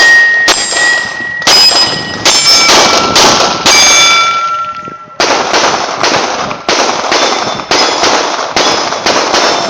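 9mm Glock 17 pistol fired in quick succession at steel plates, many shots followed by the ringing ding of a hit plate. Two strings of shots with a pause of about a second near the middle.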